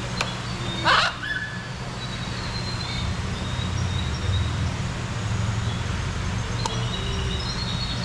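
A parrot gives one short, loud squawk about a second in, over a steady low hum, with faint high chirps scattered through the rest.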